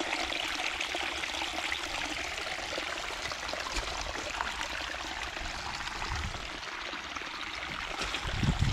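Muddy rainwater running down a tyre rut in a gravel farm track, a steady trickle of surface runoff after heavy rain. Some low rumbling comes in near the end.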